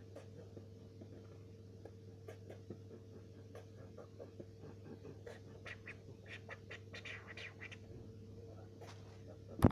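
Faint, scattered clicks and rustles close to a phone's microphone over a steady electrical hum, with one sharp knock near the end from the phone being handled.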